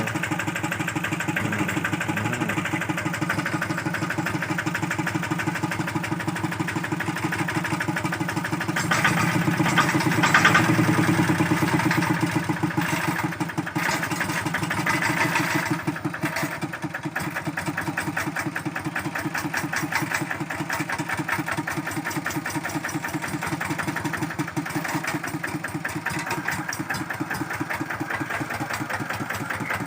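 Kubota RD65 single-cylinder diesel engine of a hand tractor running with a steady rapid beat. It gets louder about nine seconds in, then eases back down around sixteen seconds in.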